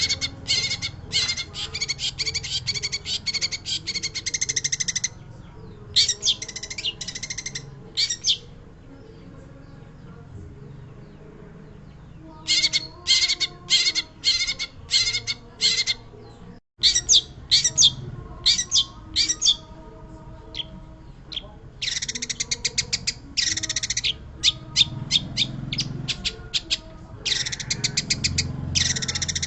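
Long-tailed shrike singing in bouts of rapid, harsh chattering notes, with a pause of about four seconds in the first half.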